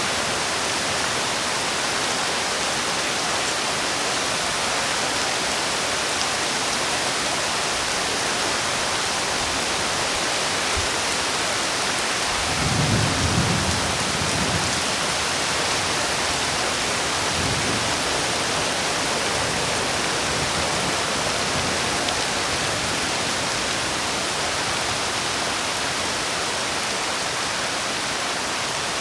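Steady rain falling, with a low rumble of thunder about halfway through and a fainter one shortly after.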